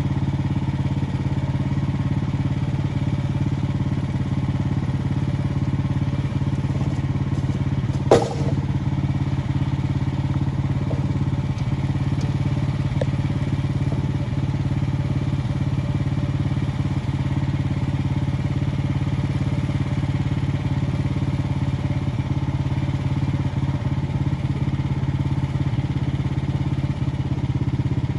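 Small gasoline engine of a Frontier OS23 portable bandsaw mill running at a steady speed. A single sharp knock sounds about eight seconds in.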